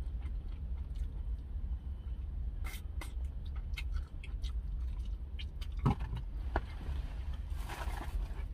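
Close-up chewing and wet mouth clicks from eating a smoked chicken wing, over a low steady hum. Near the end there is a short rustle as fries are picked out of a foil-lined takeout box.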